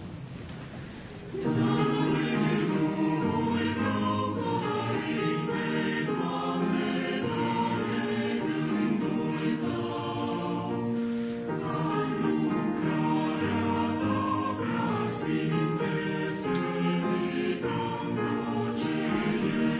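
Mixed choir of men's and women's voices singing in parts, coming in about a second and a half in and holding sustained chords.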